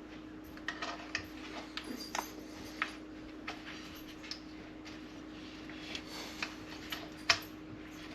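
Scattered light clicks and taps of plastic parts and small hardware being handled and fitted into a coffee machine during reassembly, the sharpest about seven seconds in. A faint steady hum runs underneath.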